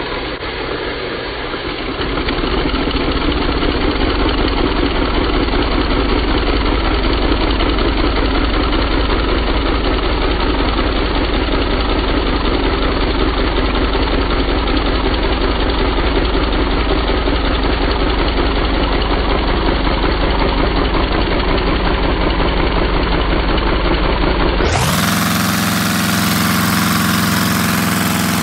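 LEGO inline-four vacuum engine running: a fast, even clatter from its pistons and valves over the rush of air, heard slowed down. About 25 seconds in the sound switches to normal speed, a steady hum with a clear fixed pitch.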